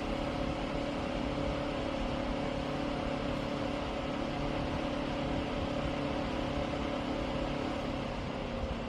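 Portable evaporative air cooler's dual-motor fan running, a steady hum over an even whir. The hum's pitch dips slightly near the end.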